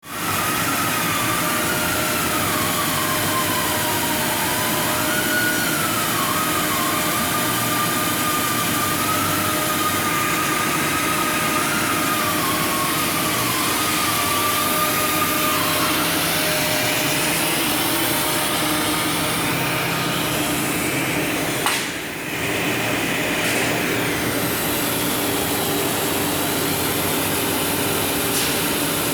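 Diamond wire saw running steadily as it cuts through a large block of copper. A wavering high whine rides over the machine noise for the first half, then stops, and there is a brief dip in the sound about two-thirds of the way in.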